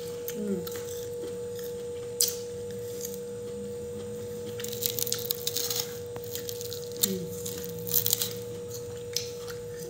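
Fingers picking at and tearing boiled mustard greens and fried mackerel on a plate, with soft wet handling noises and a few short clicks, the clusters of them about two, five and eight seconds in, over a steady high-pitched hum.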